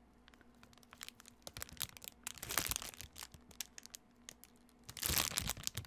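Soft rustling and crinkling of packaging, in scattered small crackles that pick up about halfway and again near the end, as the felt letters of a letter-board kit are handled.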